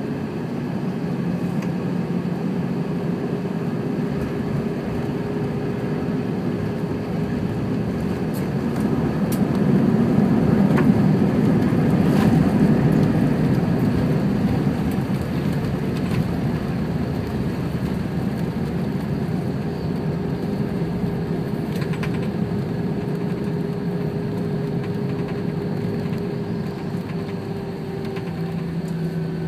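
Cabin noise in a Thai AirAsia Airbus A320-216 landing. A few sharp knocks come about a third of the way in as the wheels touch down. Then the engines grow louder under reverse thrust, peak and ease back as the plane slows on the runway with its ground spoilers up.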